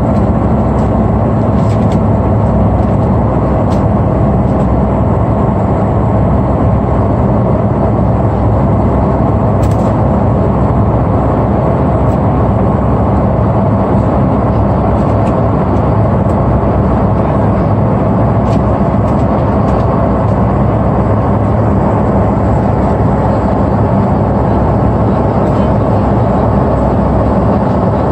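Steady airliner cabin noise inside a Singapore Airlines Airbus A330 in flight: a loud, even rush of engine and airflow noise with no change in pitch or level.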